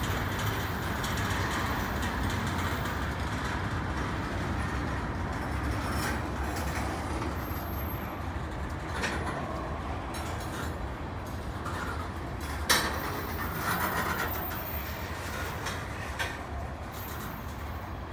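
Freight train's cars (gondolas, tank cars and covered hoppers) rolling past on steel wheels: a steady rolling rumble with a few sharp clacks, the loudest about two-thirds of the way through.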